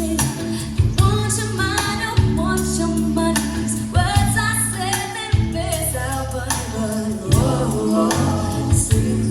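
A sung duet with band backing, sustained bass notes and regular drum hits, played back through a Crown RCX15 loudspeaker with its EQ set flat.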